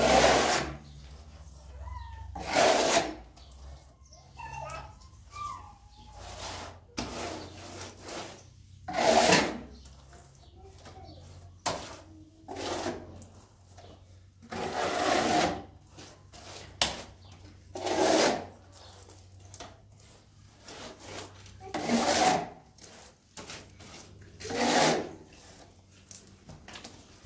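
Hand float scraping and smoothing wet mud plaster on a wall, in repeated strokes under a second long, coming every few seconds.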